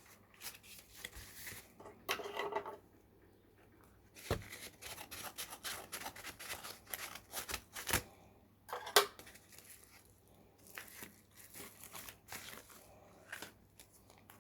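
A small parcel's packaging being opened by hand: tearing and crinkling in uneven strokes, with a few sharp clicks, the loudest about eight and nine seconds in.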